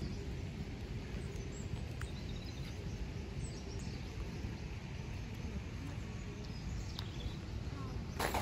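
Outdoor park ambience: a steady low background rumble with faint bird chirps now and then. Just before the end a louder, rushing noise cuts in.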